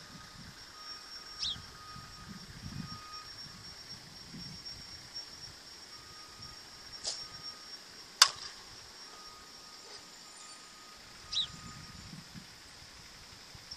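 A Resmondo composite slowpitch softball bat crushes a softball off a pop-toss machine: one sharp crack about eight seconds in, with a fainter click about a second before it. A steady high insect buzz and a couple of short bird chirps run underneath.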